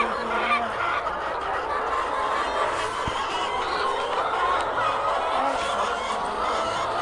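Many caged laying hens clucking together in a steady chorus of overlapping calls.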